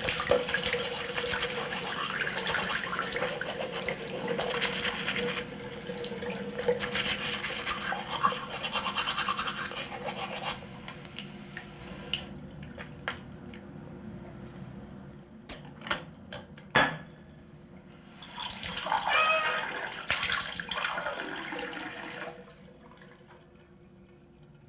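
A toothbrush scrubbing teeth in bursts of brisk strokes for about ten seconds, then quieter, with a few sharp taps. A short burst of sloshing, rinsing sound comes about two-thirds of the way in.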